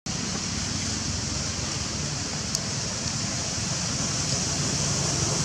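Steady outdoor background noise: an even high-pitched hiss over a low rumble, with a single sharp click about two and a half seconds in.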